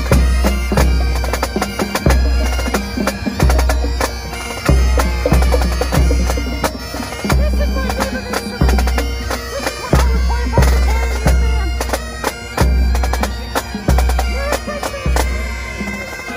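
Bagpipe music with a heavy bass drum beat.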